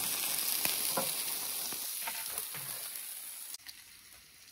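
Cross-cut beef short ribs and sausages sizzling on a grill over hot charcoal, with a few scattered pops. The sizzle slowly fades and stops suddenly about three and a half seconds in.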